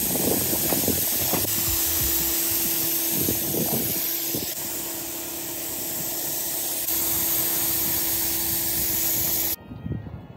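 Compressed-air gravity-feed spray gun spraying gel coat: a steady loud hiss of air with a faint steady hum beneath it, easing off a little in the middle and cutting off suddenly near the end when the trigger is released.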